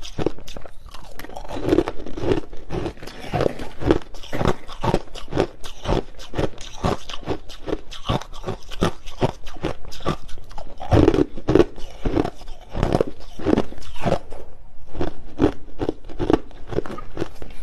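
Close-miked crunching of hard, clear crushed ice being bitten and chewed, a rapid, irregular run of sharp crunches with a few heavier bites in between.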